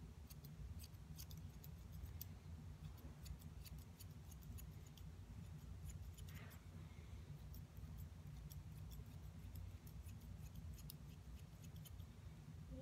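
Hand grooming shears snipping a poodle's fluffy leg hair: many faint, quick snips at an uneven pace over a low steady hum.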